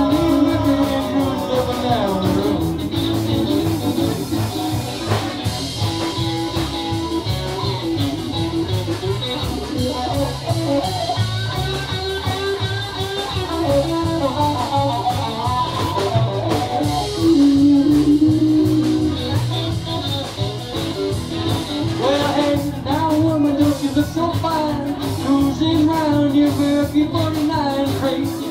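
Live band playing a blues song: electric guitar over a plucked upright double bass, with a man singing.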